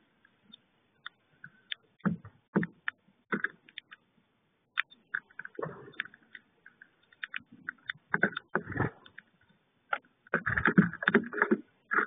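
A brambling pecking at and shuffling sunflower seeds on a wooden feeder tray: irregular sharp clicks and knocks, with denser scuffles of seed and wood, loudest in a cluster near the end. Heard through a security camera's microphone, so the sound is thin and muffled.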